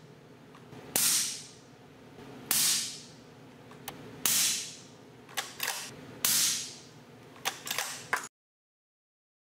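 Four suppressed rifle shots of subsonic 200-grain 300 Blackout through an AB Suppressor Raptor 7.62 eight-stack suppressor on a flush mount, each a sharp report with a short ringing tail, about one and a half to two seconds apart. They meter about 113 to 114.5 dB peak at mid-gun. A few smaller, sharper clicks fall between the later shots.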